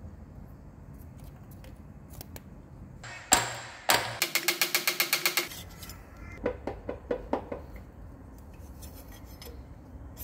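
Metal knocks and clinks of steel parts being handled while a milling machine's ballscrew bearing housing is taken apart: two sharp knocks a little over three seconds in, then a fast even rattle of about ten clicks a second for a second or so, then a few lighter clinks.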